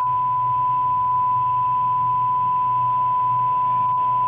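Steady 1 kHz sine test tone played through a speaker by a Socl 504 power amplifier board driven at full power just below clipping, about 82 V RMS. A faint low hum sits underneath.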